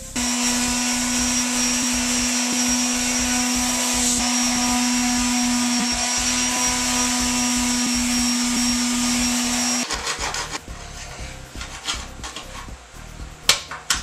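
A corded electric motor tool runs at a steady speed for about ten seconds with a constant hum, starting and cutting off abruptly. It is followed by quieter handling noises and a few sharp knocks near the end.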